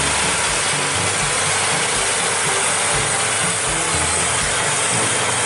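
A McCormick farm tractor's engine running under load as it pulls a reversible plough through a field. A loud, steady hiss lies over the engine, with uneven low pulses beneath it.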